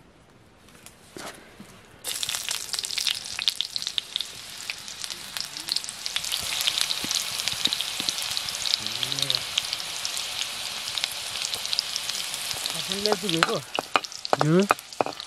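Food frying in hot oil in a black iron wok over a wood fire: a dense sizzle full of sharp crackles starts suddenly about two seconds in and keeps on steadily.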